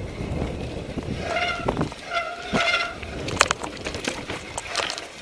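Mountain bike rattling and clicking over a rocky, wet trail, with two steady, pitched brake squeals, the first about a second in and the second, longer one about two seconds in.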